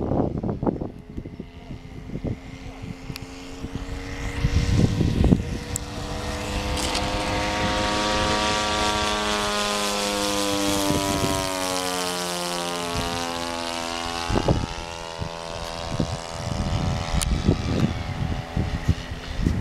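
Engine and propeller of a radio-controlled model T-28 Trojan flying past. The drone grows louder, drops in pitch as the plane goes by about eleven seconds in, then fades. Gusts of wind buffet the microphone near the start and again near the end.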